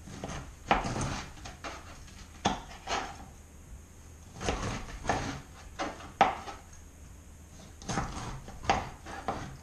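A large kitchen knife cutting through a whole pineapple on a cutting board: a series of irregular crunching strokes, roughly a second apart, as the blade works through the tough, spiky rind.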